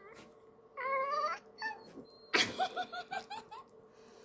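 Toy poodle whining and howling in protest: one drawn-out, wavering whine about a second in, then a louder run of short broken yelping notes around the middle.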